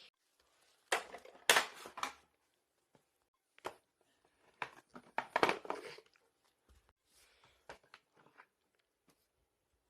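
Irregular rustling and crinkling handling noises in a few short bursts with gaps between them, loudest a little past the middle.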